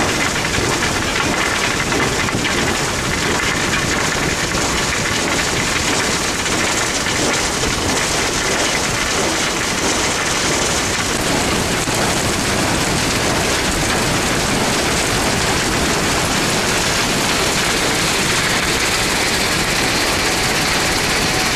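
Steady, loud rush of water and crushed iron ore washing through a wet vibrating screen and its chutes, with the machinery running underneath.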